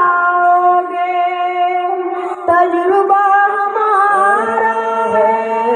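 A boy singing a verse in long, drawn-out held notes.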